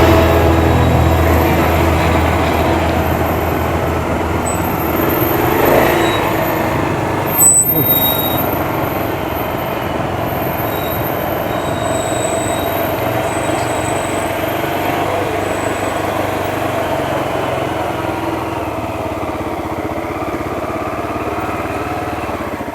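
Vehicle engine running steadily with road noise, the low rumble easing off about halfway through, and one brief knock near the middle.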